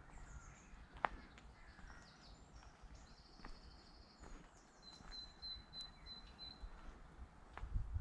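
Woodland birdsong: several small birds calling with high chirps and trills, one holding a thin whistled note for over a second past the middle, over a soft background hiss. A single sharp click about a second in.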